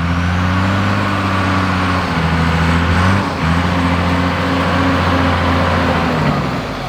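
Toyota 45 Series Landcruiser ute's engine running as it drives along a dirt track, a steady low drone that dips briefly about three seconds in and winds down near the end.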